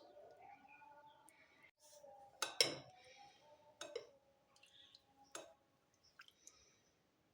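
A utensil clinking against dishes: a few faint, separate clinks with a short ring, the loudest about two and a half seconds in.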